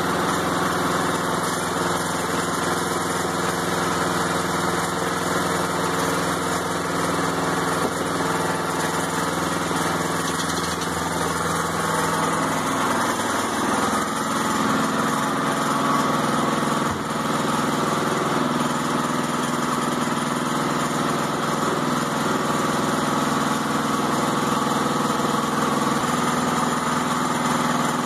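Gas engine of a Woodland Mills portable bandsaw sawmill running steadily, its pitch shifting slightly about halfway through.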